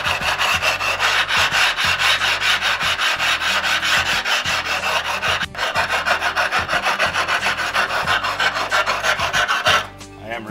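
A 60-grit rubbing stone rasping rapidly back and forth along the cut edge of a tile, grinding down chips left by a mechanical tile cutter and putting a bevel on the edge. There is a brief break about halfway through, and the rasping stops about a second before the end.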